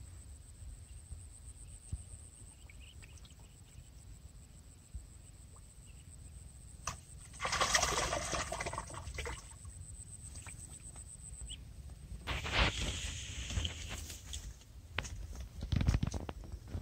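Splashing as a hooked fish thrashes at the surface of a weedy canal, a loud burst of about two seconds beginning some seven seconds in, followed a few seconds later by a second, shorter burst of thrashing.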